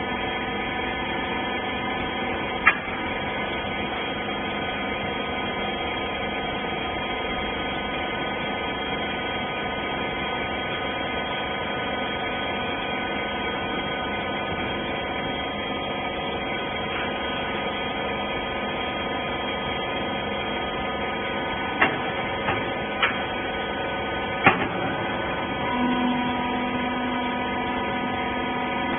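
Clothes baler's electric-motor hydraulic pump running with a steady hum, broken by a few sharp clicks or knocks: one about three seconds in and a short cluster near the end.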